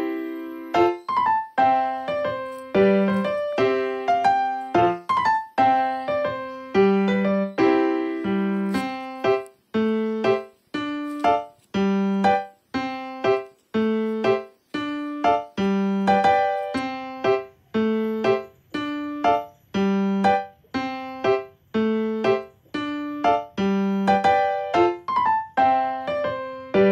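Background music: a light keyboard tune in a piano sound, with notes struck a few times a second that die away, over a repeating low bass note.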